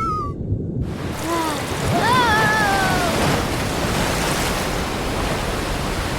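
Cartoon soundtrack: a steady rushing noise like surf. About one to three seconds in, two short voice-like calls slide down in pitch.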